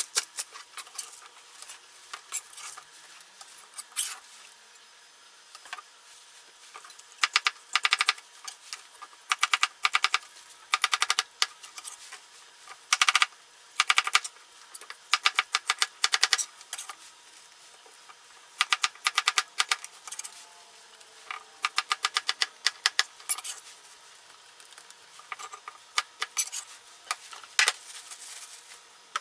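Kitchen knife chopping on a cutting board: bursts of rapid, evenly spaced sharp taps, several strokes a second, stopping and starting again many times.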